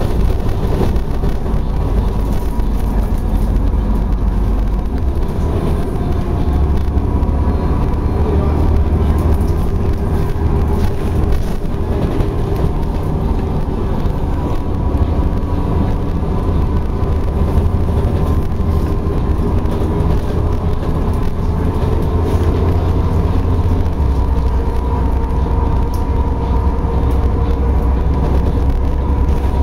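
A car driving on a wet road, heard from inside the cabin: a steady engine hum and road rumble, with the low rumble shifting a couple of times.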